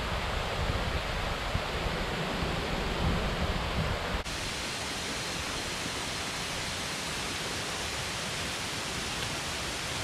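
Rushing water of a mountain gorge stream and waterfall, a steady even hiss. It carries a low rumbling for the first four seconds, then changes abruptly to a steadier rush.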